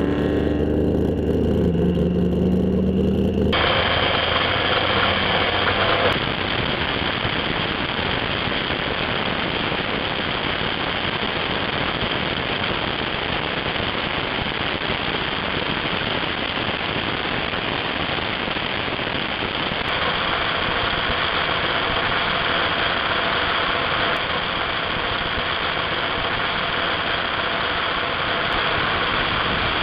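Salt-flat racing hot rod's engine running hard under heavy, even wind-and-engine roar at speed, steady for most of the stretch. It follows a brief pitched engine sound that falls in pitch and cuts off abruptly about three and a half seconds in.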